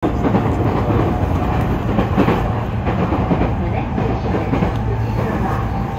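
Running noise of an electric train heard from inside the passenger car: a steady low rumble of wheels on rails, with scattered clicks from the track.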